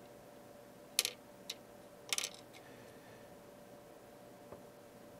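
A few light clicks and taps, about one, one and a half and two seconds in, as a small transistor is handled against the curve tracer's test fixture and will not stand up. A faint steady hum runs underneath.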